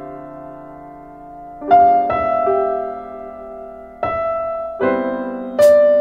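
Background piano music: soft chords struck a few times, each note left to ring and fade before the next.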